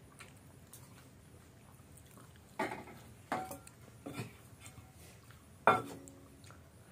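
Stainless steel plate clinking and scraping as rice is mixed and scooped up by hand: four short knocks in the second half, the loudest near the end, some with a brief metallic ring.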